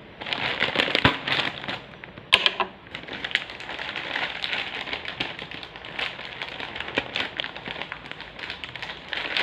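Crinkly packaging crackling and rustling as it is handled and pulled open to unbox a bag, with a sharp snap about two seconds in.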